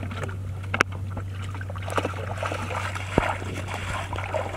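Shallow muddy floodwater sloshing and splashing around wading feet and a bucket, with a few sharp knocks, over a steady low hum.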